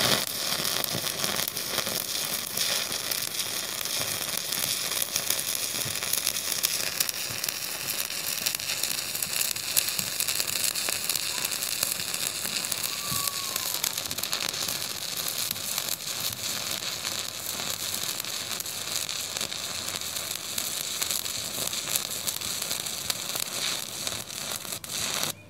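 Stick welding arc burning a 5/32-inch 7018 rod at 155 amps as a bead is run over a steel tube end cap: a steady crackling sizzle that stops suddenly near the end when the arc is broken.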